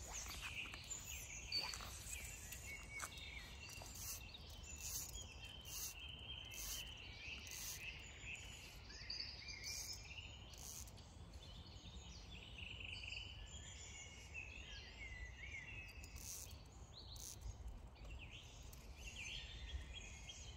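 Birds singing and chirping, many short calls overlapping at a low level, over a faint low rumble.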